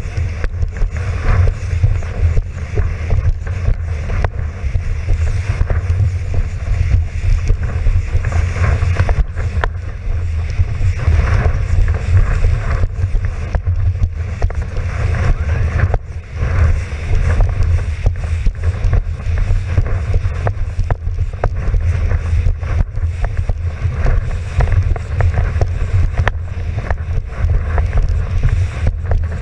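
Wind buffeting the microphone of an action camera mounted on a windsurf rig: a steady heavy rumble, with water rushing and splashing under the board as it sails at speed.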